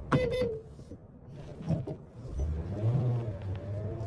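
Car engine and road noise as the car creeps along at walking pace and comes to a stop: a low rumble that swells twice.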